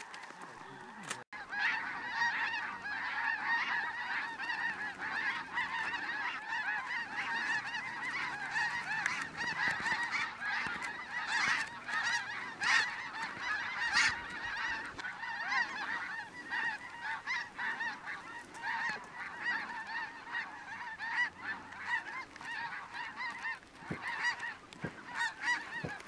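Large flock of snow geese calling overhead: a dense, continuous chorus of high yelping honks that starts abruptly about a second in.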